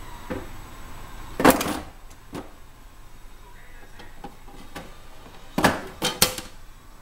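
A can of Coca-Cola dropping inside a Koolatron mini can vending machine with a loud clunk about a second and a half in. Then two or three knocks and rattles near the end as the can is pulled out through the dispensing slot.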